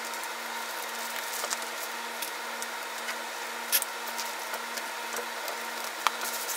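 Paper crinkling and rustling as a cardboard cake board is wrapped and its folded edge smoothed down, with a couple of sharper crackles, over a steady hum.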